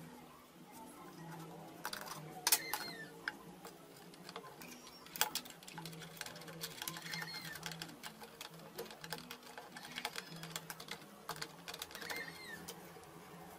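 Light clicks and taps of thin steel jigsaw blades being handled and fitted into the blade hole and clamp of a homemade plywood jigsaw table; the saw is not running. Quiet background music underneath.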